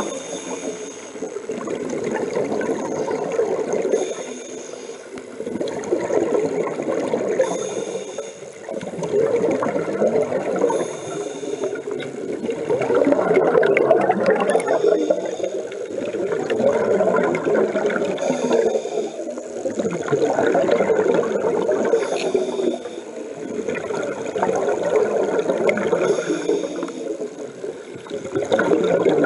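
Scuba diver's regulator breathing underwater: bursts of exhaled air bubbling and gurgling out, swelling and fading every few seconds in time with the breaths.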